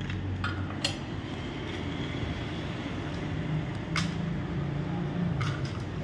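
A few sharp metal clinks as the steel hand chain and fittings of a rolling shutter motor are handled, over a low steady hum.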